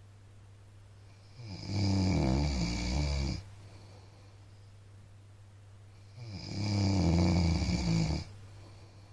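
A man snoring in his sleep: two loud, rattling snores, each about two seconds long and some five seconds apart. A faint steady low hum runs between them.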